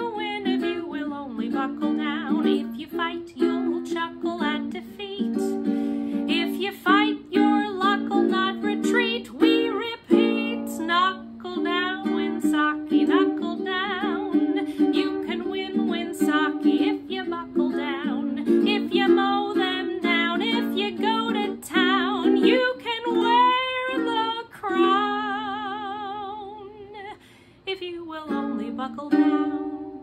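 A woman singing while strumming an Aloha ukulele, her voice holding a long note with vibrato about three-quarters of the way through, then a final strummed chord that dies away.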